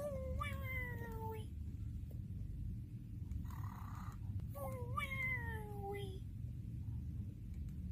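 Cartoon-style snoring for the Nick Jr character Face: two drawn-out exhales, each a pitched tone that slowly falls, with a short breathy inhale between them, over a steady low hum.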